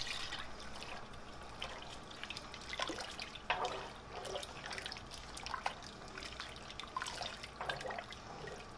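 Wooden spoon stirring a pot of brothy soup with beans, pasta shells and sausage: irregular sloshing and small splashes of liquid.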